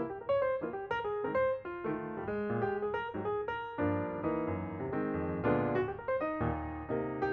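Background piano music: a steady run of notes over low bass notes.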